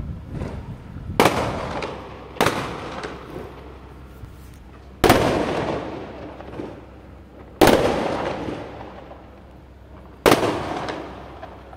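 Aerial firecrackers bursting overhead: five loud bangs, the last four about two and a half seconds apart, each trailing off in a long echo.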